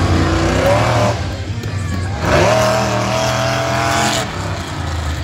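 Monster truck engine revving hard. It rises briefly about half a second in, eases off, then climbs sharply about two seconds in and holds high for about two seconds before dropping off near the end.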